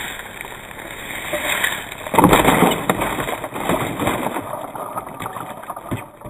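A child's small bicycle with training wheels rolling on a concrete sidewalk and over the wrecked foam RC plane. A loud crunching rush comes about two seconds in, followed by a run of short clicks and rattles.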